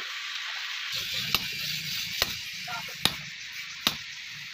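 Hammer striking a chisel held in tongs on red-hot steel, cutting the billhook blade: four sharp blows, about one every 0.8 seconds, over a steady hiss.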